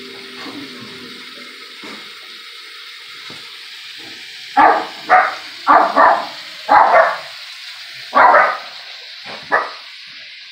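A dog barking about seven times in quick succession, starting about four and a half seconds in, over a steady hiss.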